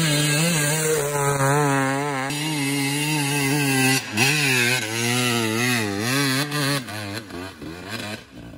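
Dirt bike engine revving hard under load as the bike climbs a steep loose hill, its pitch wavering with the throttle. It drops briefly about four seconds in and again near seven seconds, then fades away near the end.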